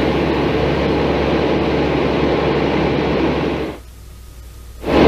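Steady in-flight drone of a propeller aircraft, engine and rushing air noise together, that drops out for about a second near the end and then comes back.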